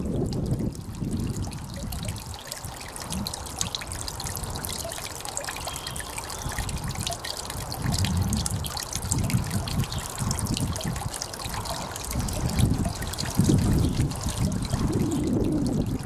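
Garden-pond waterfall: water trickling off a mossy stone ledge in thin streams and splashing steadily into the pond. Low gusts of wind buffet the microphone now and then, loudest in the second half.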